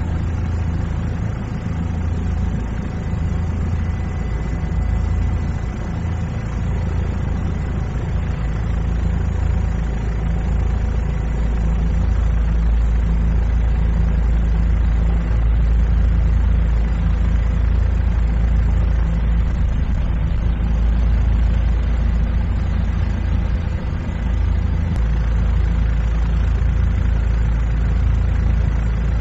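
Steady low drone of a helicopter's engine and rotors, heard from aboard, with a faint steady whine over it.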